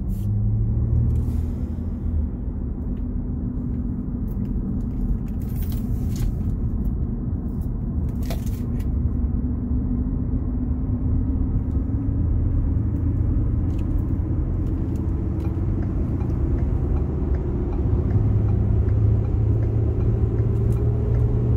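A car driving: a steady low engine and road rumble, with a hum that slowly rises in pitch over the second half and a few faint clicks partway through.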